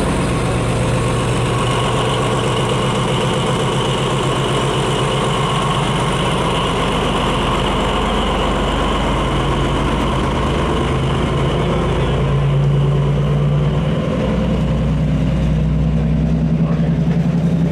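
Diesel locomotive engine running as it hauls a passenger train away, a steady low drone that grows louder about twelve seconds in as the engine works harder.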